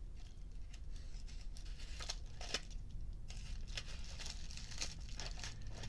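Scissors cutting through a plastic padded bubble mailer in irregular short snips, with the plastic crinkling as it is cut and handled.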